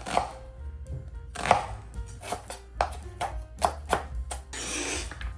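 Chef's knife chopping a red onion on a plastic cutting board: about a dozen quick, unevenly spaced knife strikes against the board, ending with a short scrape.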